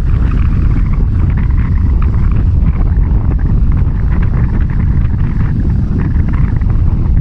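Strong sea wind buffeting the microphone: a loud, unbroken low rumble with a hiss of wind above it.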